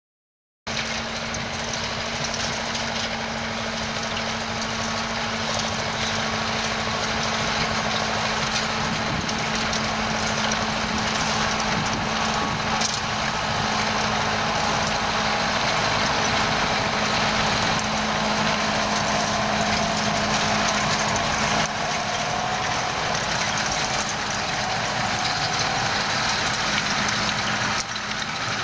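Diesel farm machinery at work: a John Deere 8800 self-propelled forage harvester and tractors running steadily under load, with a constant mechanical hum that fades about three-quarters of the way through.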